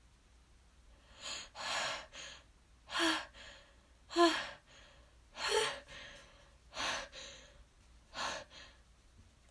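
A sneeze buildup that won't release: about six sharp, breathy gasping inhales, roughly one every second and a half, a few catching briefly in the voice, the loudest a little past the middle. The sneeze stays stuck and never comes.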